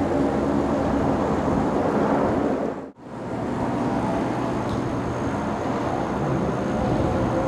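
Distant jet aircraft engines rumbling steadily around the airport. The sound cuts out for a moment about three seconds in, then comes back.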